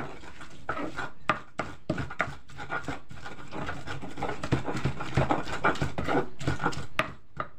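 Pestle grinding red chilies, garlic and salt in a cobek (Indonesian mortar), a steady run of rasping, scraping strokes as the spices are crushed into a paste.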